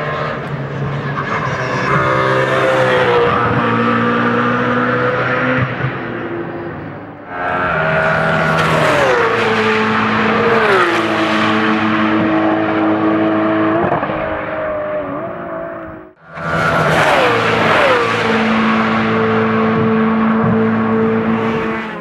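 BMW Z4 GT3 race car's V8 engine running hard past the trackside in three clips, its pitch dropping in steps as it goes by. The sound cuts abruptly between clips about seven and sixteen seconds in.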